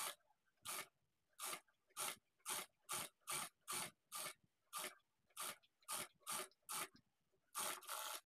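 Industrial lockstitch sewing machine stitching in short, faint spurts, about two a second, as the fabric is fed under the needle bit by bit while a neck facing is sewn on.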